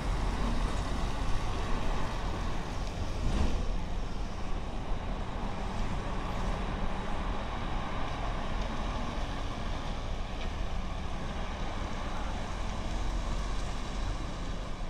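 A heavy full-trailer truck with a 13-litre diesel engine drives off at low speed, its engine giving a steady low rumble that slowly eases as it pulls away. There is one short sharp noise about three seconds in.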